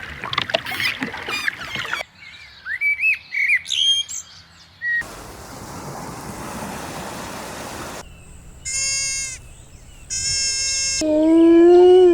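A run of different animal calls, each cut off sharply into the next: chirping, gliding bird-like calls, a few seconds of hiss, then two short pitched calls and a loud call that falls in pitch near the end.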